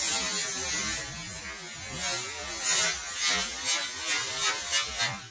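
Slowed-down sound of a lithium-ion battery pack in thermal runaway, venting and spraying burning debris: a dense rushing hiss with wavering low tones. In the second half it comes in pulses about two a second, and it cuts off abruptly near the end.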